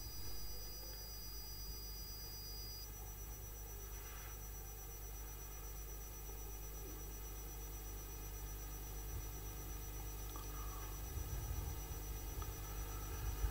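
Faint room tone: a steady low hum with several thin, faint high steady tones and no distinct events.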